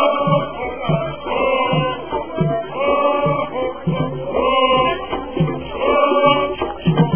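Music: a group of voices chanting a short phrase over and over, over a steady beat.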